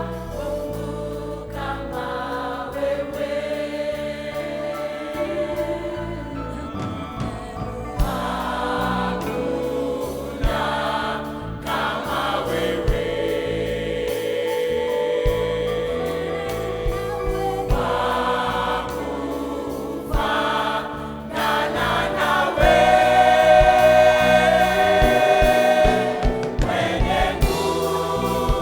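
Church choir singing a gospel worship song, with long held notes over shifting chords.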